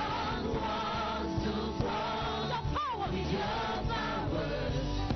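Gospel praise-and-worship music: a choir singing over a band with a steady bass.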